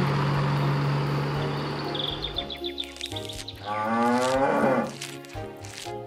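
Low hum of the cartoon truck's engine for the first two seconds, then one long cow moo, rising in pitch, about four seconds in.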